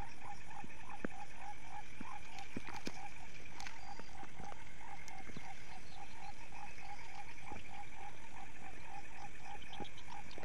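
Frog chorus: short croaks repeating evenly, about three or four a second, over a higher continuous trilling.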